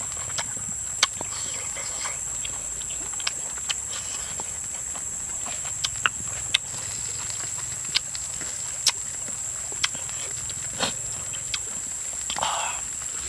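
Scattered sharp clicks and small pops, about a dozen at uneven intervals, over a steady high hiss, with a short louder noise near the end.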